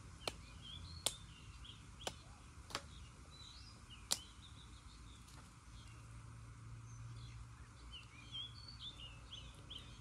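Machete chopping bamboo shoots: five sharp chops over about four seconds, unevenly spaced. Small birds chirp throughout and grow busier in the second half.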